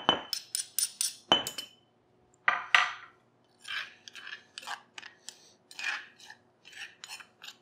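A spoon scraping and clinking against the inside of a stone mortar as a wet marinade paste is stirred: two sharp, ringing clinks in the first second and a half, then a run of irregular scrapes.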